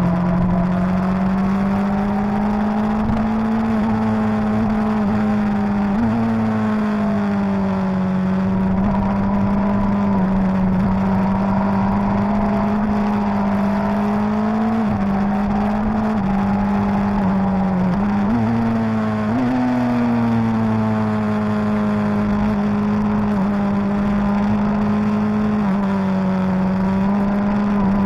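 Suzuki GSX-R1000's inline-four engine running steadily at high revs under a rider's throttle. Its pitch rises and falls gently through the corners, with a few sudden small steps up and down.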